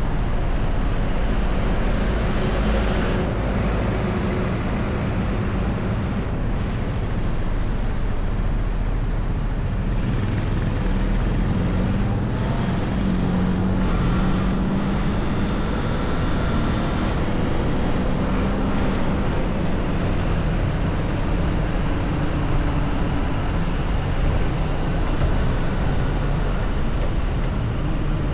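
Car driving in city traffic: steady road and engine noise, with the engine's hum shifting up and down in pitch a few times.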